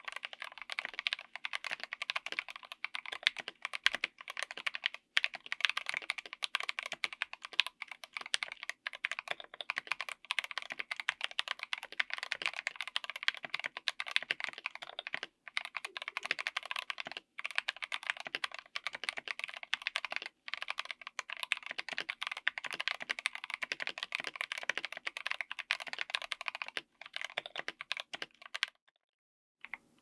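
Fast typing on a mechanical keyboard with stock, factory-lubed Gateron Oil King linear switches, Maxkey SA Black double-shot ABS keycaps, an FR4 plate and a Tofu60 aluminium case: a dense, continuous stream of key strikes. The typing stops near the end.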